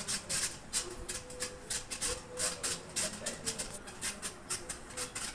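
National F-150YM 60-inch industrial ceiling fan running, with a rhythmic high squeak about three to four times a second from its damaged ball bearings, over a faint steady hum.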